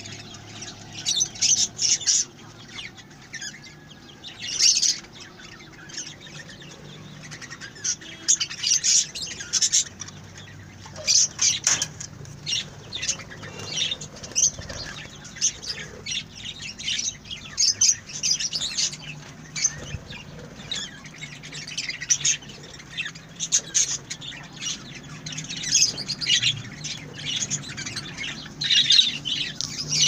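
A flock of budgerigars chattering: many short, sharp chirps and squawks coming in irregular clusters every second or two.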